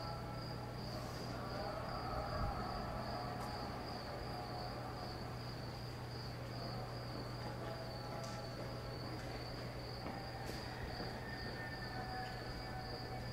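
Insects trilling in one high, steady, continuous tone over a low, steady hum, with faint wavering tones lower down and a few faint ticks.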